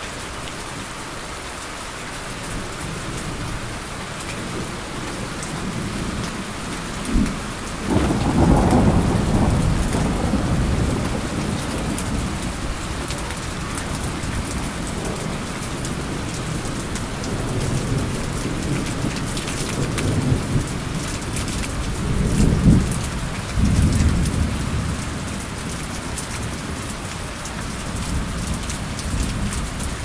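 Steady heavy rain hiss with rolling thunder. A long low rumble builds about a quarter of the way in, and a second peal of thunder comes about three quarters through.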